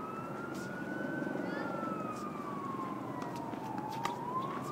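Emergency vehicle siren wailing in slow sweeps, rising and falling over about four seconds, over a steady background rumble.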